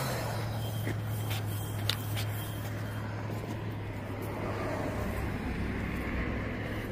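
Road traffic on the bridge: a steady low engine hum with tyre and road noise over it, and a few small clicks, the sharpest a little under two seconds in.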